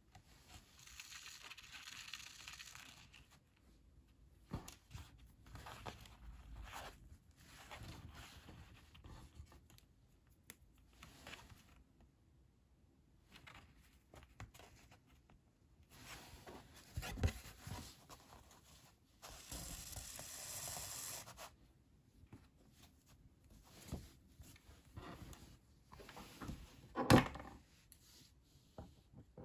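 Linen thread being drawn through the sewing holes of paper signatures during hand bookbinding, in several long swishes a second or two each, with soft ticks of the needle and paper. A few knocks on the book block, the loudest near the end.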